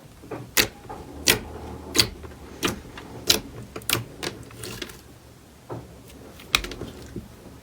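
Slime being pressed and poked, making a run of sharp clicking pops about every two-thirds of a second as air bubbles in it burst.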